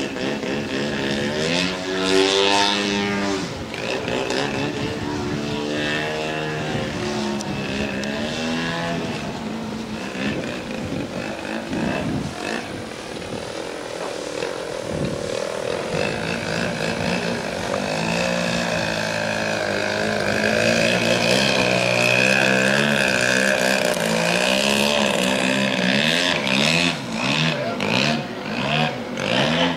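Large-scale radio-controlled Yak 55's 100cc two-stroke gas engine running through aerobatics, its pitch swinging up and down with the throttle and the passes. It grows louder in the second half as the plane comes by low.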